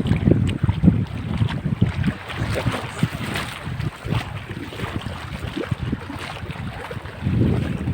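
Wind buffeting the microphone in irregular gusts, a low rumbling that swells and drops, strongest at the start and again near the end.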